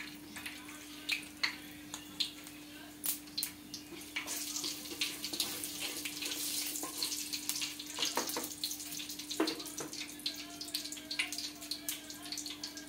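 Mustard and cumin seeds crackling and popping in hot oil in a kadai, a sign the oil is hot enough for tempering. Sharp pops come scattered throughout over a sizzle that grows denser from about four seconds in, with a steady low hum underneath.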